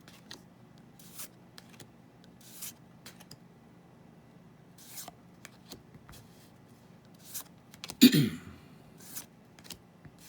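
Trading cards being handled and slid one past another as a booster pack is sorted through: a run of short, soft rustles and flicks. About eight seconds in there is one brief, much louder voice-like sound that falls in pitch.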